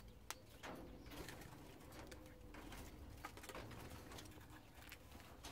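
Faint cockatiel sounds: a soft, low cooing-like murmur with scattered light clicks.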